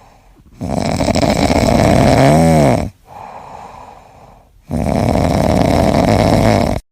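Loud snoring: two long snores about four seconds apart, with quieter breaths between them. The first snore briefly turns into a whistling tone that rises and falls.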